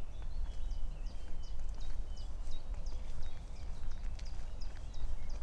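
Footsteps on a woodland path, with small birds singing a quick series of short high chirps throughout, over a low rumble.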